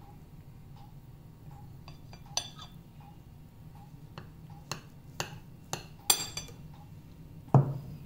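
A knife clinking and tapping against a ceramic plate while slicing a soft sponge cake: a few sharp, irregular clicks, with a duller knock near the end.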